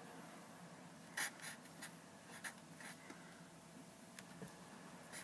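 Felt-tip marker (a Vis-à-Vis) writing letters on graph paper over a clipboard: a faint string of short, separate pen strokes, the strongest just over a second in.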